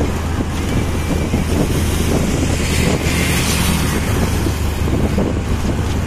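Motorcycle taxicab's engine running steadily under way, heard from inside the passenger cabin with wind on the microphone. About halfway through, another motorcycle passes close alongside, adding a brief rise of hiss.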